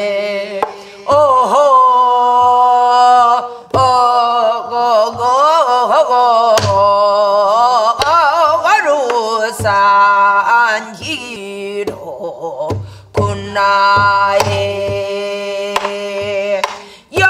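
Korean folk (Namdo minyo) singing: one voice holding long notes that waver and bend in pitch, with a barrel drum struck in a slow, uneven beat under it.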